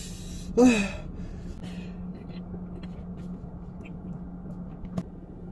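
A man's short vocal cry falling in pitch, about half a second in, a pained reaction to the heat of spicy Buldak fire noodles. After it comes a steady low hum with faint small noises, and one sharp click near the end.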